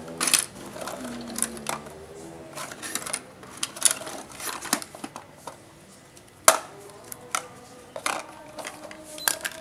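Plastic number keys of a toy cash register being pressed: a string of irregular clicks and knocks, with short electronic beeps after some of the presses.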